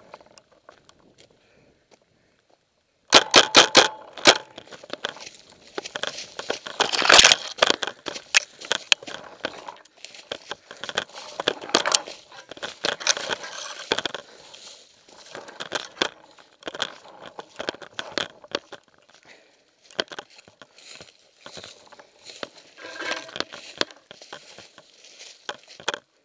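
About three seconds in, a paintball marker fires a rapid string of about eight shots. Then come crunching footsteps in dry leaves and twigs, with branches crackling and scraping past, as someone pushes through dense brush.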